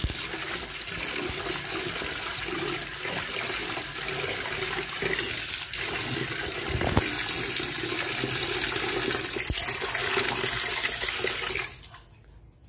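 Tap water pouring in a steady stream into a metal pot of water while fish pieces are rinsed by hand. The flow stops abruptly near the end.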